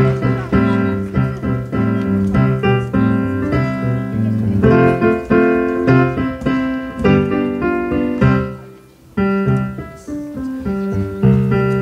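Electric stage piano playing a passage of notes and chords; the playing briefly dies away about nine seconds in, then picks up again.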